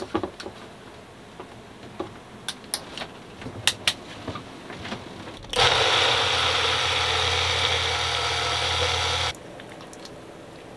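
Light clicks and knocks as a bullet-style personal blender cup is handled and set on its base. About five and a half seconds in, the blender motor runs steadily for about four seconds, puréeing sweet potato and chickpeas for hummus, and stops suddenly when the cup is released.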